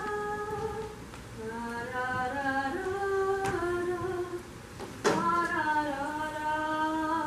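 A young woman's voice singing, or humming, a slow melody in long held notes. There are two sharp knocks, one about three and a half seconds in and a louder one about five seconds in.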